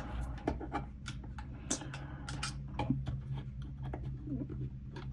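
Faint, scattered light clicks and taps of small plastic kit parts and tools being handled on a workbench, over a steady low hum.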